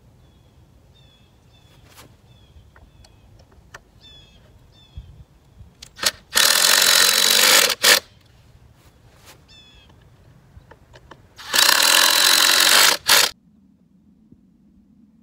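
Cordless drill driving screws into a pressure-treated wood strip, in two runs of about a second and a half each that stop abruptly, with a few light clicks between them.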